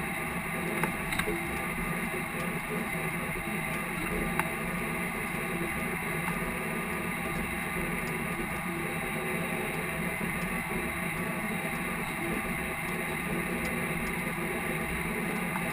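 Case IH tractor's diesel engine running steadily under load while pulling a field cultivator, a constant even drone with no change in speed.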